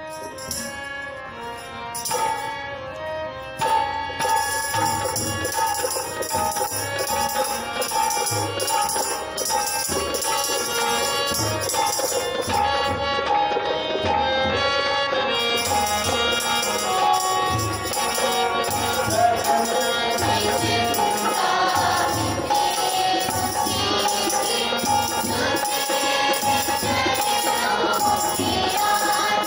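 Hindi devotional prayer-song music: a keyboard playing held notes, with tabla and dholak strokes coming in about four seconds in and jingling percussion joining about halfway.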